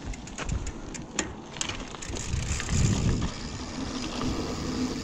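Mountain bike rolling down a dirt trail: tyre noise with scattered rattling clicks over bumps, and a louder low rumble about two and a half seconds in.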